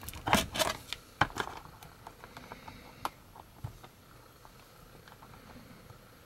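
Hands handling a plastic Snakeweed action figure: a quick cluster of plastic clicks and knocks in the first second and a half, then faint scattered taps as the figure is settled upright.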